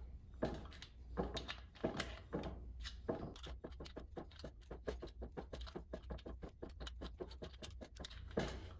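Ratchet of a torque wrench clicking as it tightens the oil-pump centering tools on a Harley Twin Cam engine. A few single clicks come first, then a fast, even run of about seven or eight clicks a second from about three seconds in.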